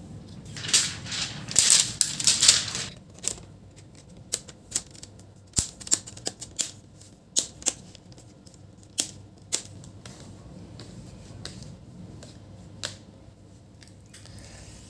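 Crinkling of thin plastic film being peeled off a replacement laptop display panel, then a string of sharp, irregular clicks and taps as the panel and its plastic frame are pressed into place in the lid.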